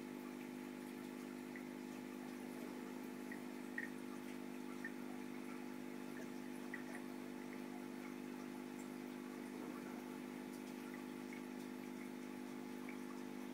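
Steady, faint hum of running aquarium equipment, with scattered small water drips and plinks; the clearest comes about four seconds in.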